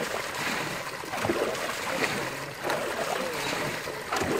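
Canal water pouring steadily through a net into a woven basket fish trap, splashing onto the water and small fish caught in the basket.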